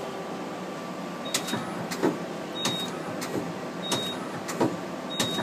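Okuma LB-15II-W CNC lathe's 12-station turret indexing from station to station, a sharp clunk about every two-thirds of a second starting a little over a second in, over the steady hum of the running machine.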